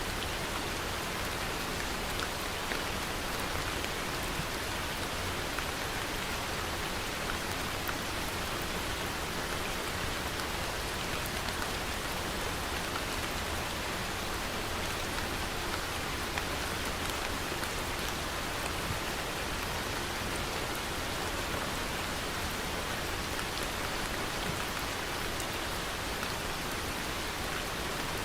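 Steady rain falling, with faint scattered drop ticks.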